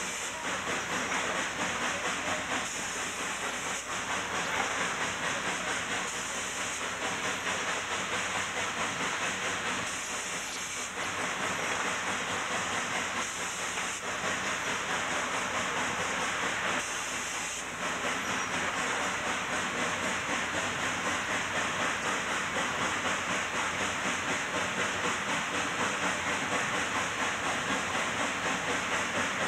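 Cab sound of a K-36 narrow-gauge 2-8-2 steam locomotive working a heavy tonnage train: a continuous rush of steam and exhaust with a fast, even beat, and the clatter of the wheels on the rails. The beat becomes steadier in the last third.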